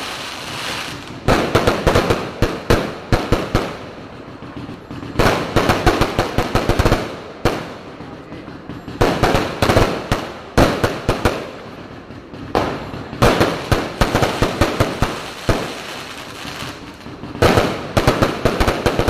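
Fireworks going off in volleys of rapid bangs and crackles, about five clusters each lasting two to three seconds with short lulls between them.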